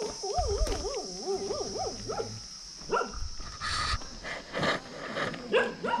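A dog whining and yelping in quick rising-and-falling cries, mostly in the first two and a half seconds and again near the end, over a steady high-pitched buzz.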